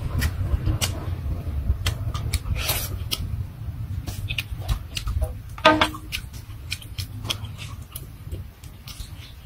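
Close-up eating sounds: lip smacks, sucking and chewing as boiled fish is picked off the bones by hand, heard as many short wet clicks, with one louder mouth sound a little past halfway. A steady low rumble runs underneath.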